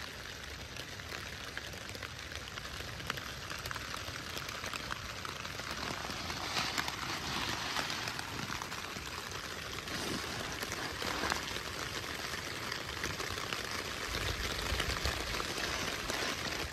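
Steady rain falling on a tent and the wet granite around it: an even hiss scattered with the ticks of single drops. A low rumble comes in near the end.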